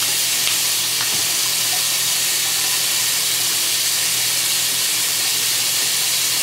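Tap water running into a bathroom sink, a constant, even hiss.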